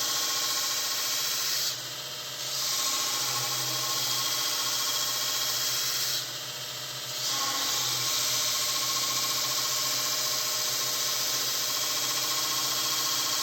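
Grizzly 2x42-inch 1 HP belt sander running a 50-grit ceramic belt, grinding a steel lawnmower blade to sharpen it: a steady grinding hiss over the motor's hum. Twice the grinding drops away briefly, leaving the motor running on its own.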